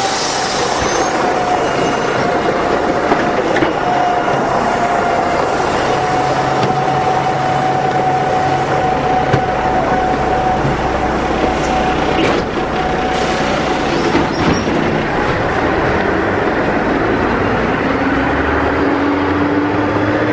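City bus running, heard from inside the passenger cabin: steady engine and road noise with a held whine, and a lower whine that rises slowly near the end.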